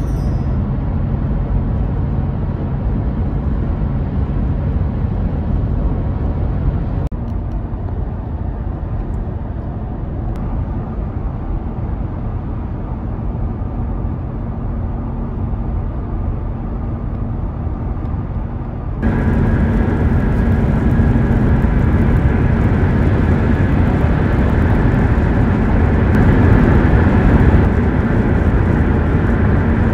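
Steady road and engine noise heard inside a minivan cruising on a highway, mostly a low rumble. It jumps abruptly twice, about 7 and 19 seconds in, and after the second jump it is louder, with more hiss.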